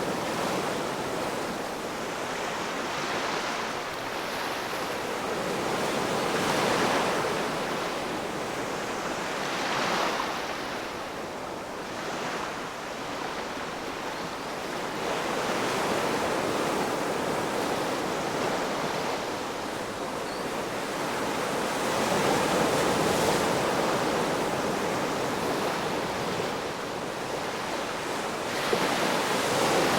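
Ocean waves breaking and washing on the shore, a continuous surf noise that swells and eases every few seconds, with a stronger wave breaking near the end.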